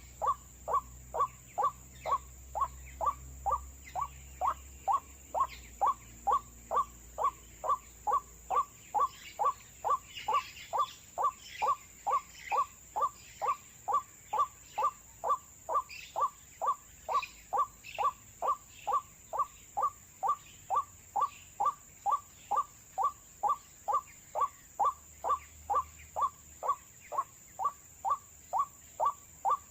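White-breasted waterhen call used as a trapping lure: a short dropping note repeated very evenly about twice a second.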